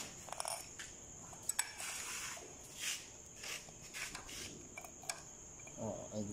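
Scattered light clicks and small metallic taps from hands handling the opened Mitsubishi 4D32 diesel injection pump, over a steady high-pitched chirr of crickets.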